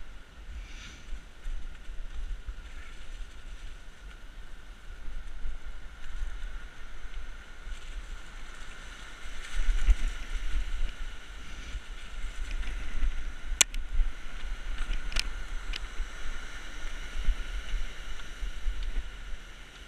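Rumble and wind buffeting on the microphone of a camera on a moving bike, over the steady rush of a rocky river's rapids, which swell louder about halfway through. A few sharp clicks sound a little past the middle.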